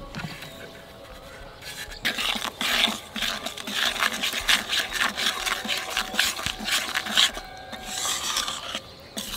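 Metal spatula scraping and stirring a coarse ground spice mix into oil in a metal wok, in quick repeated strokes that start about two seconds in and ease off near the end.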